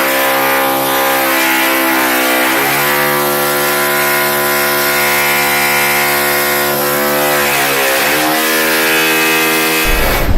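Electric metal-cutting saw with an abrasive disc cutting through steel stock, a loud motor whine over a grinding hiss. The pitch sags twice as the disc bites into the metal under load, and the saw stops suddenly near the end.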